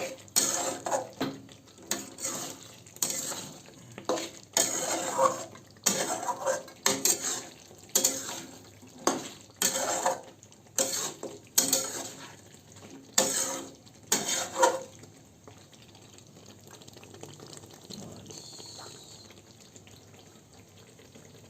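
A spoon scraping and stirring chicken curry as it is dry-sautéed (kasha) in a kadai, about one stroke a second. The strokes stop about fifteen seconds in.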